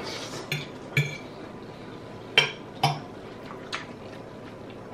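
A fork clinking and scraping against a plate: about five short, sharp clinks, the loudest two coming close together about halfway through.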